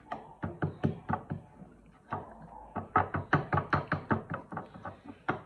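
A wooden spoon stirring a thick, creamy mixture in a bowl, clicking and knocking against the bowl's side about four or five times a second, with a short lull about two seconds in.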